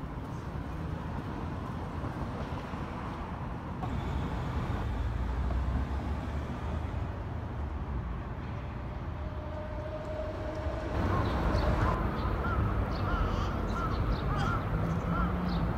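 Outdoor city ambience: a steady low rumble of traffic, with birds chirping repeatedly in the second half.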